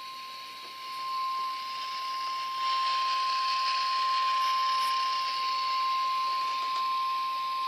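Weather Radio Canada's 1050 Hz warning alarm tone: a single steady high tone held without a break over radio static hiss. It is the alert tone that sets off alert-equipped weather radios, sounded here for the required monthly test.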